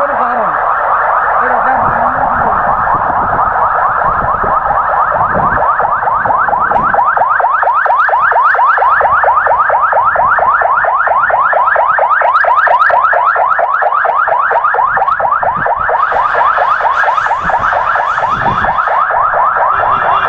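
Ambulance siren sounding continuously in a fast, repeating rising sweep.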